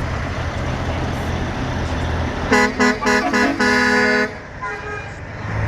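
Truck horn sounding four short blasts and then one longer blast, followed by a couple of fainter toots. A low engine rumble runs under it before and after the horn.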